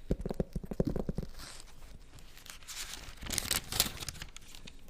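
Paper being turned, rustling and crinkling. There is a run of soft low flapping taps in the first second, then louder crisp rustles about three to four seconds in.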